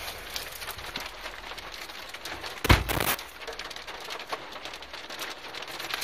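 Hailstones striking a car's roof and windows, heard from inside the cabin: a steady hiss with many sharp ticks. About halfway through comes one loud thump lasting about half a second.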